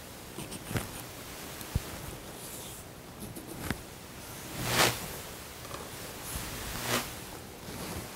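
Hands pressing and sliding over an old vinyl seat-cover piece laid on fabric, giving a few short swishes and rustles over a steady hiss. The loudest swish comes about five seconds in.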